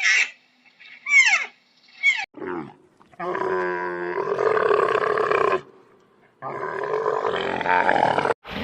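Animal calls: three short, high cries that fall steeply in pitch, then two long drawn-out calls of about two seconds each.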